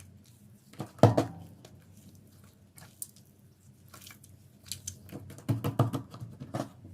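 Lifebuoy soap being crushed: irregular crunching and crackling squishes, the loudest about a second in and a quick run of them near the end.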